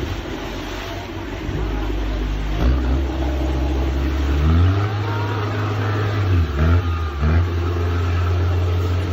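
Amphibious all-terrain vehicle's engine running and revving. Its pitch steps up twice, about two and a half and about four and a half seconds in, then dips and climbs back quickly a few times between six and seven and a half seconds.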